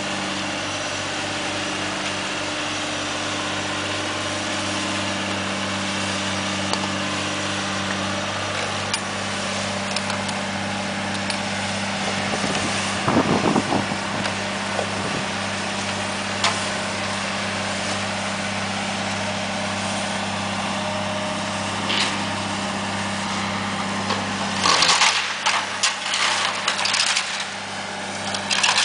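Diesel engine of a Cat demolition excavator running steadily, with a short run of knocks about halfway and a burst of crashing, clattering rubble near the end as the engine note drops.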